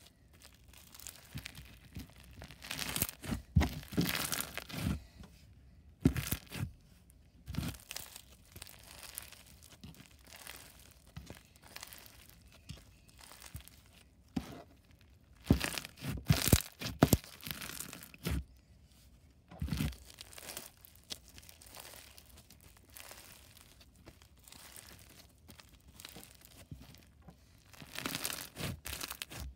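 Crunchy bead-filled slime being squeezed and pressed between the hands. It crackles and makes bubble pops in irregular bursts, with quieter pauses between the squeezes.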